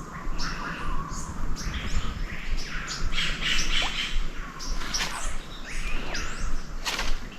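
Forest birds chirping and calling in short, quick rising and falling notes. A few sharp clicks come through, the loudest shortly before the end.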